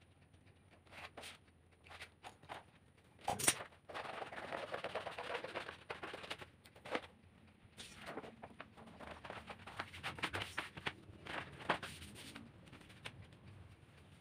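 A thin foam sheet being handled on a tiled floor: scattered clicks and knocks, the sharpest about three and a half seconds in, and a stretch of rustling and scraping from about four to six seconds in.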